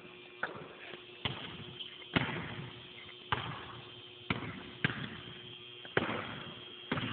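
Basketball bouncing on a hardwood gym floor: about eight sharp, irregularly spaced thumps, each with a short echo in the gym.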